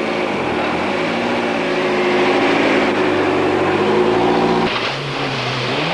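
Ford Escort RS Cosworth Group A rally car's turbocharged 2.0-litre four-cylinder engine revved up and held at steady high revs for a scrutineering noise test, then dropping sharply near the end.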